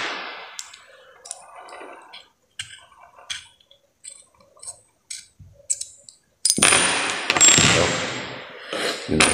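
Light clicks and taps of small metal scope-mount parts being handled, including scope rings and an Allen key. About six and a half seconds in comes a louder rustling noise lasting about two seconds.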